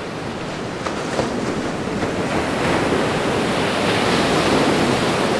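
Ocean surf washing onto a sandy beach: a steady rush of waves that grows somewhat louder after about two seconds.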